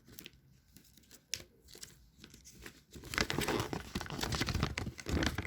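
Paper instruction sheets being handled and unfolded, crinkling and rustling: a few light rustles at first, then steadier, louder crinkling from about three seconds in.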